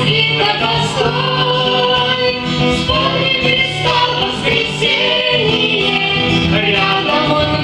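A Christian children's song sung with instrumental accompaniment, led by a woman's voice holding long notes.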